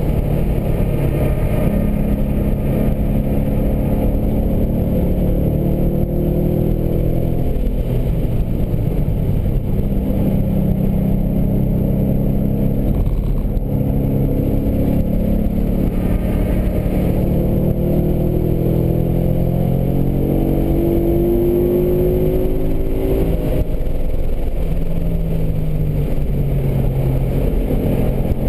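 2012 Ford Mustang GT's 5.0-litre V8 heard from inside the cabin at speed on a race track. The engine pitch rises and falls as the car accelerates and slows through the corners, with a long climb about two-thirds of the way through, over steady road noise.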